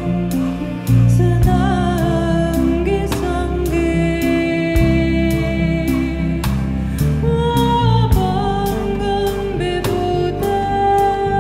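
Live devotional music: a sung melody over a harmonium, with a deep bass line and a steady drum beat.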